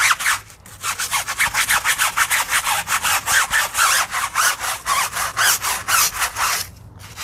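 Stiff-bristled tyre brush scrubbing a rubber tyre sidewall lathered in foaming wheel and tyre cleaner, in quick back-and-forth strokes of about five a second. It stops briefly about half a second in and again near the end.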